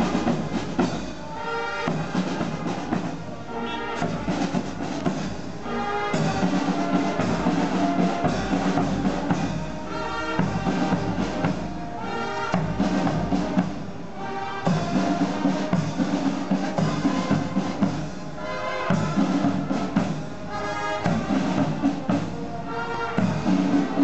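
Marching band playing a march on brass instruments and drums.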